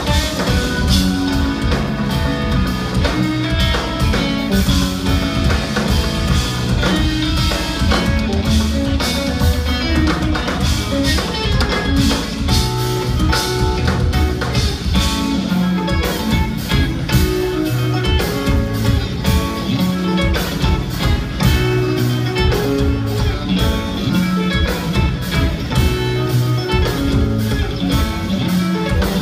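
Live instrumental progressive metal: two electric guitars and a drum kit playing loudly together, heard from the audience, with fast, dense drumming under the guitar lines.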